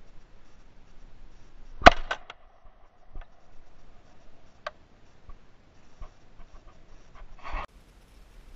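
A single shotgun shot about two seconds in, followed at once by a few lighter mechanical clicks. Then faint handling knocks and a short rustle near the end.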